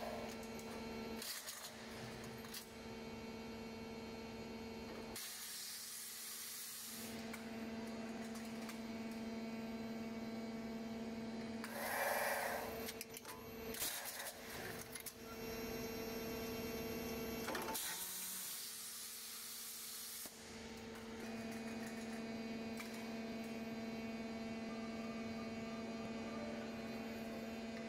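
Steady electric hum of an automatic pallet strapping machine and its conveyor line, with a short louder whirr about twelve seconds in. The hum drops out briefly twice.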